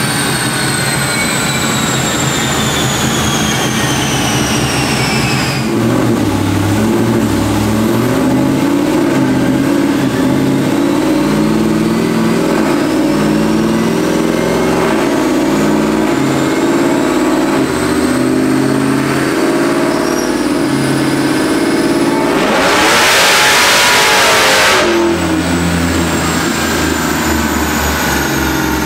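Supercharged LT5 V8 of a pickup running on a chassis dyno: the supercharger whine falls away over the first few seconds, then climbs steadily as the truck gains speed on the rollers. Near the end a loud rush lasts about two seconds, then the sound drops back.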